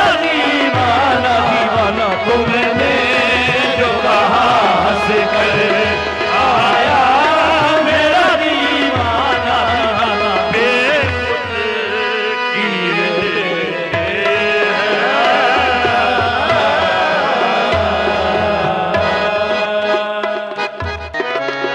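Live qawwali music: wavering sung melodic runs over tabla and a steady held drone. The tabla comes more to the fore near the end.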